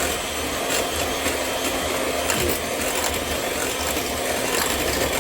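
Electric hand mixer running steadily, beating cake batter in a bowl.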